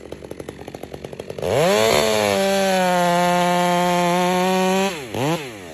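Stihl chainsaw ticking over at idle, then revved up to full throttle about a second and a half in and held at a high steady pitch for about three and a half seconds. It is then let off, blipped once more, and drops back to idle.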